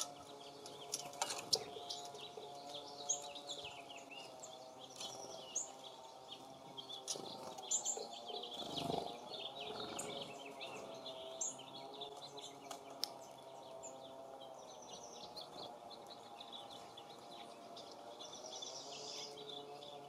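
Small songbirds at a feeder giving many short, high chirps and call notes, scattered irregularly, over a steady low hum.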